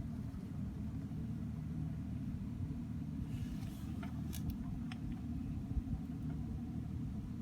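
Suzuki Spacia kei car running: a steady low rumble with a few faint clicks about four to five seconds in.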